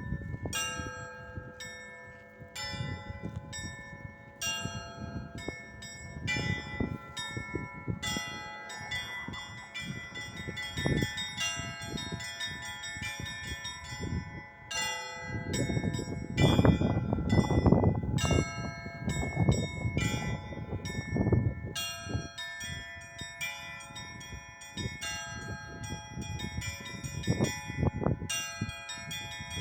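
Several church bells of different pitches struck in quick succession, a few strokes a second, their tones ringing on over one another. Heavier, deeper strokes come through in the middle stretch.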